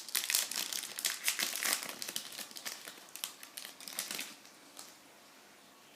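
Plastic foil wrapper of a basketball trading-card pack crinkling and crackling in the hands for about four seconds, then it stops.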